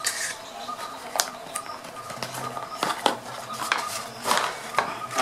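Cardboard phone-box packaging being handled: a series of light taps and knocks, with a longer scrape or rustle of cardboard about four seconds in, as the inner box is lifted out and turned over.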